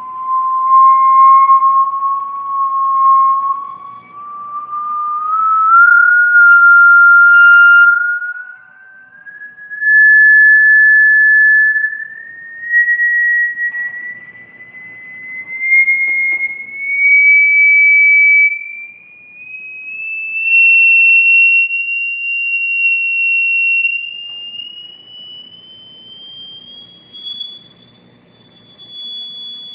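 A single pure electronic test tone played through a speaker, a high whistle-like pitch rising in small steps throughout, its loudness swelling and dropping every few seconds.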